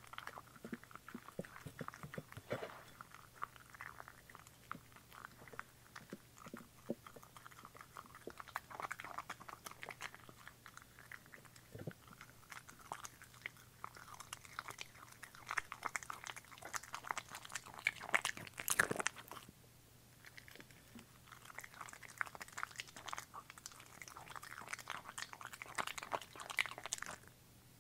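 Bichon Frise eating from a ceramic bowl up close: rapid wet chewing, smacking and licking, a busy run of small clicks that peaks about two-thirds of the way in, pauses briefly, then carries on more quietly as the dog licks the bowl clean.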